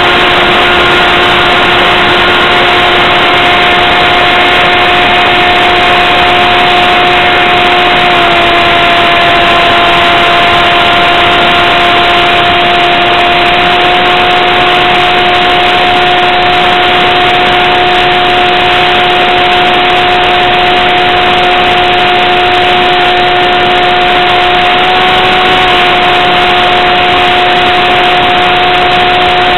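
RC plane's motor and propeller heard from a camera on board in flight: a steady, loud whining drone over a constant rushing noise. The pitch drops slightly about eight seconds in and rises a little for a moment near the end.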